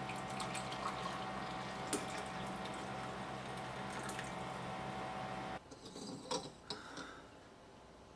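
Water bubbling and gurgling in a vintage Cory glass vacuum coffee maker over a steady hum, with scattered small crackles. The hum cuts off suddenly about five and a half seconds in, followed by a few light clinks.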